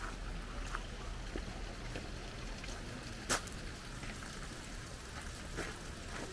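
Steady rushing of the Kibune River's flowing water, with a few faint clicks and one sharper click a little past halfway.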